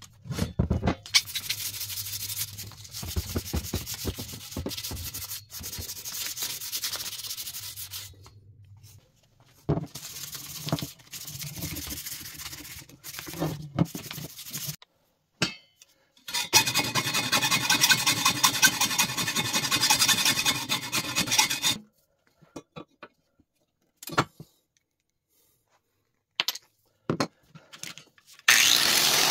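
Hand sanding of a painted steel bike fork and frame with an abrasive pad: stretches of fast back-and-forth rubbing, broken by short silent gaps. Near the end a power tool starts up and runs loudly.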